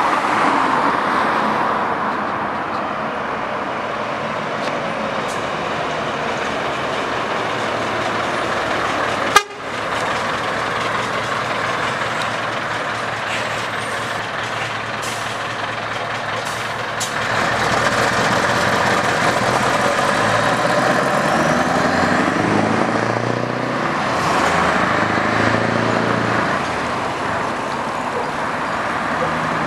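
Scania 164 truck's V8 diesel engine running as the tractor-trailer drives past, with the engine note climbing and falling through the gears in the second half as it pulls away. A single sharp click about nine seconds in is the loudest moment.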